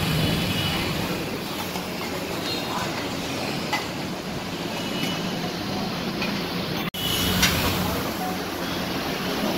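Steady background din with voices faintly in it. The sound drops out for an instant about seven seconds in.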